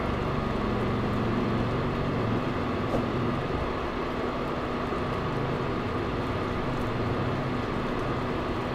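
Steady hum of an induction cooktop's cooling fan, with mushroom gravy simmering in the pan.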